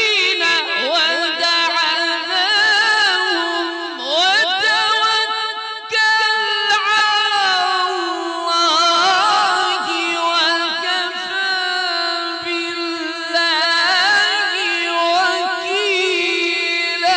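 A male Quran reciter chanting in the melodic mujawwad tajweed style, with long held notes ornamented by wavering runs and a short break about six seconds in.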